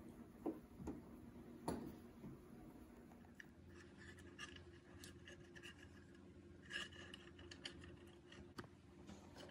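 Faint scratching and a few light clicks of small screws being driven into a car's rear spoiler while its pieces are handled, over a low steady hum.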